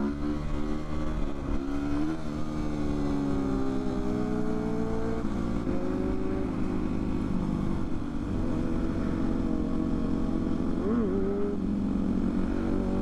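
Motorcycle engine revving as it is ridden: the pitch climbs slowly over a few seconds, drops back, and rises again in a short blip near the end, over a steady low engine rumble.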